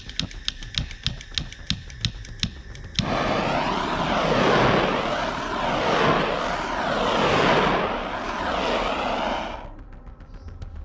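A quick run of light ticks, about five a second. About 3 s in, a loud steady rush of blowing air starts suddenly. Its tone sweeps up and down roughly once a second before it fades out near the end.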